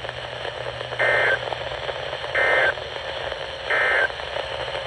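NOAA Weather Radio playing the Emergency Alert System end-of-message data bursts: three short, buzzy digital bursts about 1.3 seconds apart over steady radio hiss, signalling the close of the weekly test.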